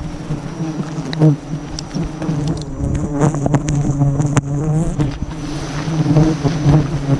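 A dense swarm of giant honeybees buzzing loudly around the microphone as their open hanging combs are disturbed: a steady low drone, with scattered knocks and rustles from gloved hands working close by.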